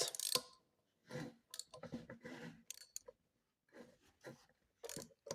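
Faint clicking and rasping of a hand tool in several short spells, working on the 6 mm bolts that hold a motorcycle's rear brake disc to the wheel.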